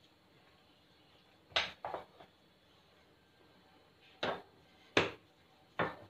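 A metal oven tray knocking and clattering as dough balls are set down and pressed onto it: a short cluster of knocks about a second and a half in, then three single knocks a little under a second apart near the end.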